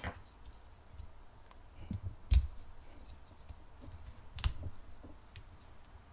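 Small clicks and taps of a metal spool valve body and its gasket being handled and worked apart by hand, with two sharper clicks about two and a half and four and a half seconds in.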